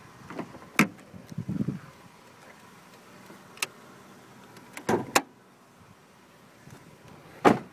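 Door handle, latch and hood-release clunks of a 2002 Chevrolet Cavalier as the door is opened and the hood release is pulled to pop the hood: a sharp click about a second in, a double clunk around five seconds, and the loudest thud near the end.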